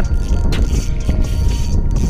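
Wind buffeting an action camera's microphone: a loud, steady low rumble.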